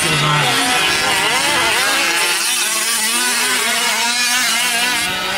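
Two-stroke gas engines of 1/5-scale RC racing trucks running on a dirt track, several at once, their pitch rising and falling as the throttles open and close.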